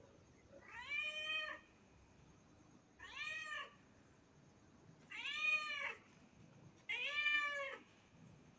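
Domestic cat meowing four times, each meow under a second long, rising then falling in pitch, about two seconds apart.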